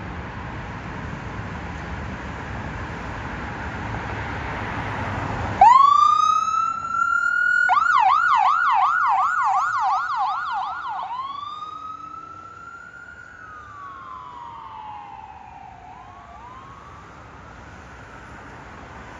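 Electronic siren on a fire department squad van pulling out on an emergency call. About six seconds in it winds up into a wail, switches to a fast yelp for about three seconds, goes back to a long wail that slowly falls away, and winds up again. Before the siren there is a steady rush of traffic noise.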